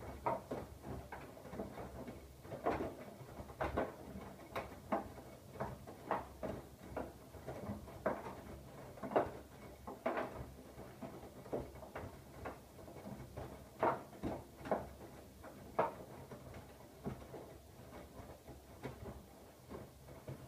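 Siemens iQ700 front-loading washing machine (WM16S793GB) in its wash phase: the drum turns and the wet laundry drops and sloshes in it, giving soft irregular thuds about once or twice a second over a steady low motor hum.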